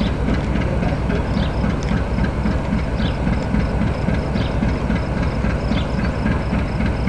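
GE B23-7 diesel-electric locomotive idling: a steady low throb that pulses about four times a second from its V12 diesel engine.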